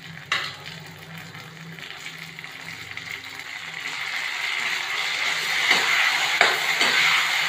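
Pureed mustard-greens saag sizzling in hot ghee and fried onions in a kadai, the hiss growing steadily louder as it is mixed in. A sharp knock just after the start, and a wooden spatula scraping and stirring against the pan several times in the second half.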